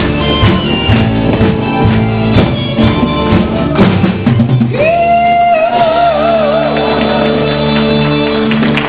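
Music with drums and guitar. About five seconds in, a lead voice or instrument holds one long note with vibrato over sustained chords.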